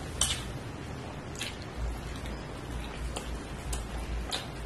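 Close-up eating sounds of a person chewing soft fried egg, with several sharp wet mouth clicks and smacks at irregular intervals.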